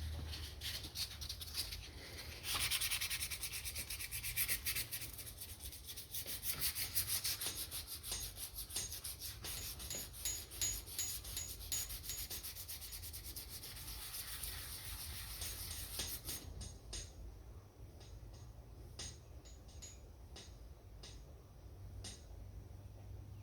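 Sandpaper rubbed by hand in quick back-and-forth strokes over the guitar's finish, working down the dent repair. The sanding stops about two-thirds of the way through, leaving a few light clicks and taps.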